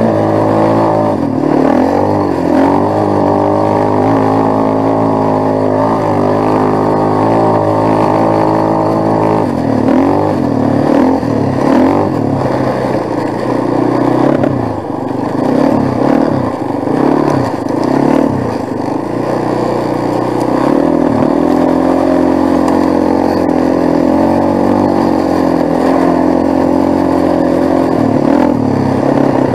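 ATV engine running under way, its pitch rising and falling with the throttle through the middle, then holding steady near the end.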